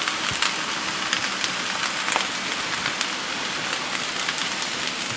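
Fried rice sizzling steadily in a hot pan: a constant frying hiss with small scattered crackles.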